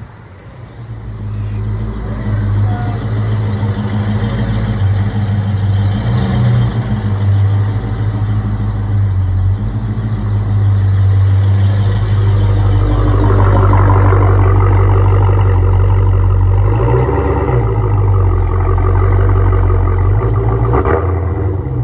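Dodge Charger Hellcat's supercharged V8 running, growing louder about a second in, then holding a steady deep note with small rises and falls in pitch.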